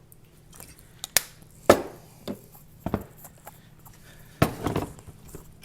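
Kitchen utensils and containers being handled while measuring ingredients: a handful of separate light clicks and knocks, then a longer clatter about four and a half seconds in.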